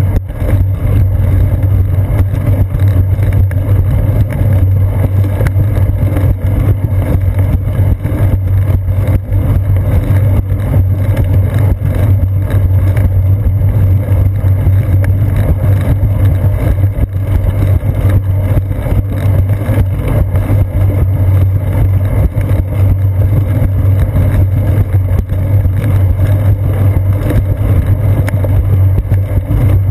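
Steady, loud low rumble picked up by a seat-post-mounted GoPro on a moving bicycle: wind on the camera and vibration from the bike rolling along a concrete path.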